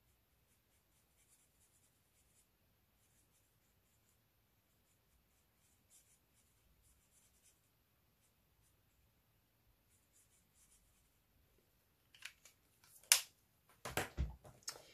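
Faint scratching of a Stampin' Blends alcohol marker tip colouring on stamped cardstock, in short light strokes. Near the end comes a sharp click, then a few knocks and a dull thud.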